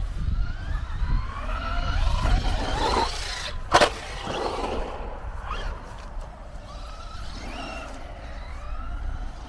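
Brushless electric motor of a Traxxas Rustler 4x4 VXL RC stadium truck whining as the truck accelerates and lets off, its pitch rising and falling again and again, with a sharp knock about four seconds in. Wind rumbles on the microphone.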